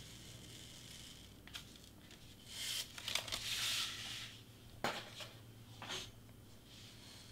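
Hobby knife slicing through foam board: a scratchy hiss of over a second in the middle, with a few short scrapes of the blade before and after it.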